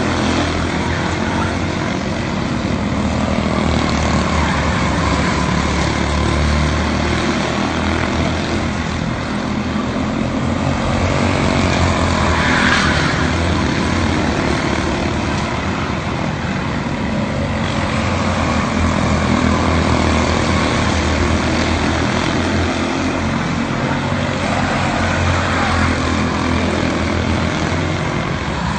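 Several quarter midget race cars with small single-cylinder Honda engines racing around a small oval. Their steady buzzy drone swells and fades as the pack laps, with a brief rising whine about twelve seconds in.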